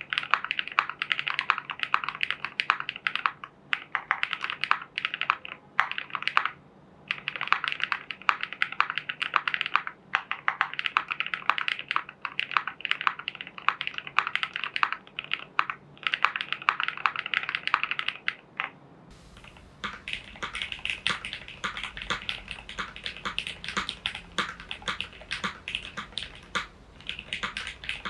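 Mechanical keyboard typed on quickly: a JerPlanet J1800 with lubed, filmed switches made of Cherry housings and NovelKeys Cream linear stems, tape-modded and case-foamed. It gives dense runs of keystroke clacks, broken by short pauses.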